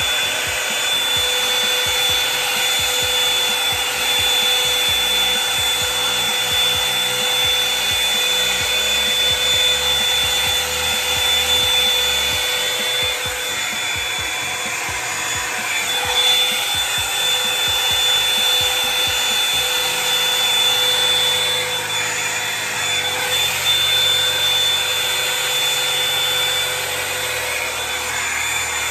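Hot Tools One Step Blowout Volumizer hot-air brush running on its low setting: a steady rush of blown air with a constant high motor whine, as the brush is worked through the hair.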